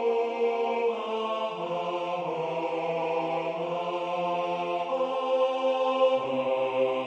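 Four-part choir voices, most likely rendered by notation software, singing slow sustained chords with the bass line moving by step every second or two.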